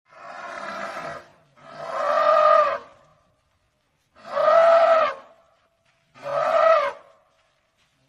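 African elephant trumpeting: four calls of about a second each, the first quieter than the rest, each with a slight rise and fall in pitch.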